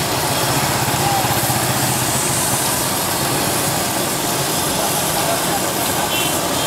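Dough sticks deep-frying in a wok of hot oil, a steady sizzle, with a small engine running underneath, its low throb strongest in the first couple of seconds.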